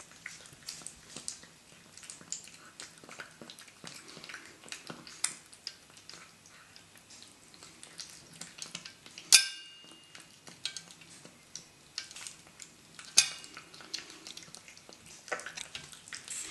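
A cat eating chunks of wet food from a stainless steel bowl: steady wet chewing, licking and small clicking sounds. Twice, about nine seconds in and again about thirteen seconds in, the metal bowl gives a sharp ringing clink; the first clink is the loudest sound.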